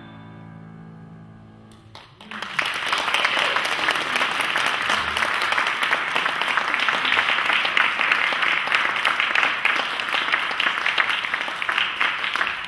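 The last held chord of piano and violin dying away, then an audience bursting into steady applause about two seconds in.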